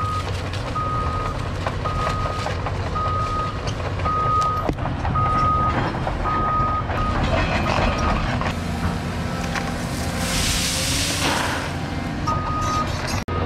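Excavator's diesel engine running under a travel alarm beeping about once a second. The beeping stops about seven seconds in and returns near the end, and a rushing hiss rises and fades about ten seconds in.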